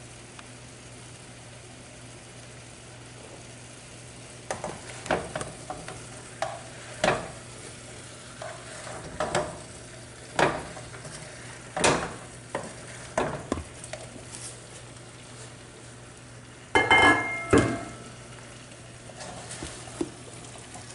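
Irregular knocks and clatter of plastic spice containers and kitchen utensils being handled. About three-quarters of the way through comes a louder clatter with a brief ringing clink. A steady low hum runs underneath.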